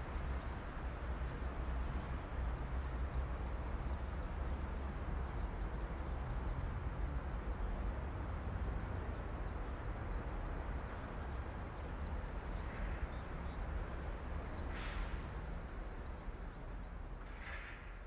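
Outdoor ambience: a steady low rumble under a noise bed, with faint, brief bird chirps now and then and a couple of short rushes of sound near the end.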